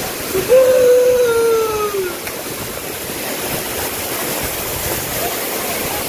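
A waterfall's steady rush of falling water, with a single long shout about half a second in that is held for under two seconds and falls slightly in pitch.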